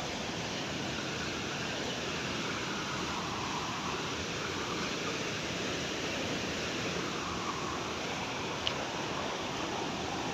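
Steady rush of falling water from a waterfall, an even continuous hiss, with one brief click near the end.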